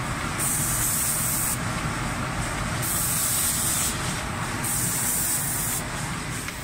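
Automatic paint spraying machine's spray guns hissing as they spray cabinet doors, the hiss cutting in and out about every second, over a steady low rumble of the machine.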